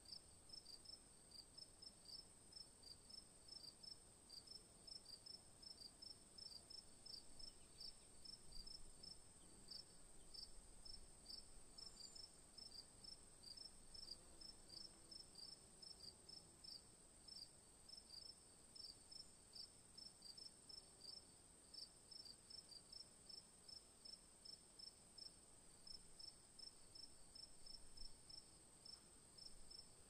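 Faint crickets chirping, an even pulse of about three short high chirps a second over a steady high hiss.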